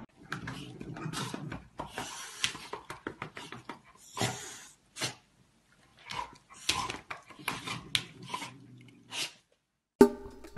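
A cat and a golden retriever play-fighting: a string of short, sharp animal sounds with brief pauses between them.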